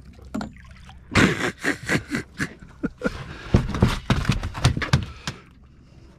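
A red snapper flopping on a fibreglass boat deck: a run of irregular wet slaps and thumps that starts about a second in and stops about four seconds later.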